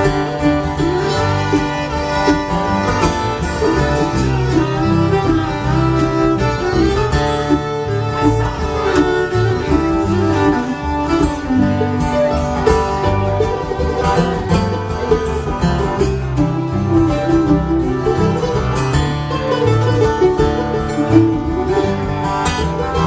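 Live band playing an instrumental break between sung verses of a country song: a wavering lead melody over steady string accompaniment and bass, with no singing.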